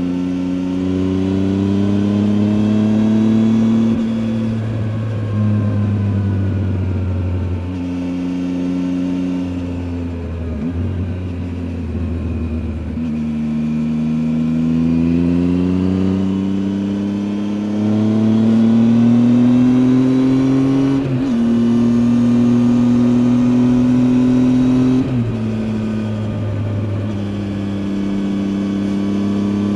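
Triumph Tiger 800 XCA's 800 cc inline three-cylinder engine on the move, its pitch rising as it pulls through the revs and dropping sharply at each gear change, several times over, with a few stretches held at steady revs.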